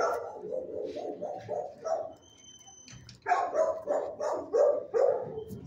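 Dogs barking in quick runs of about three or four barks a second, with a louder run starting about three seconds in. A brief high steady tone sounds in the pause between the runs.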